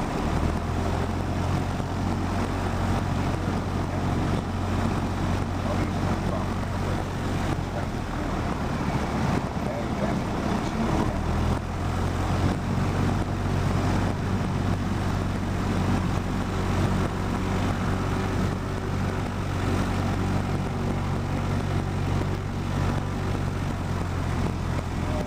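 Cessna 172 light aircraft's piston engine running steadily at low power, a continuous drone with a low fundamental hum.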